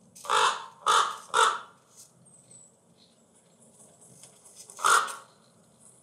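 Recorded crow caws played back through the small speakers of an animatronic raven: three caws in quick succession, then a fourth about five seconds in.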